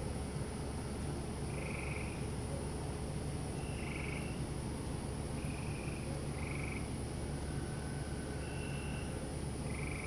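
Frogs calling: short calls repeating every second or two, over a steady high-pitched cricket trill and a low steady hum.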